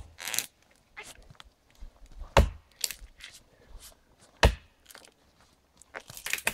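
Fiskars axe chopping into the trunk of a thin standing conifer: a sharp blow about every two seconds, then a quicker flurry of knocks near the end. Smaller crunches of snow and twigs underfoot come between the strikes.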